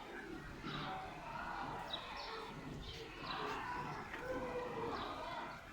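Indistinct murmur of voices, with short high chirps scattered through it every second or so.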